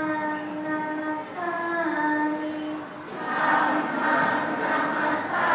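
A large group of children's voices chanting in unison in long held notes that step up and then down in pitch, turning into a denser, less clear mass of voices in the second half.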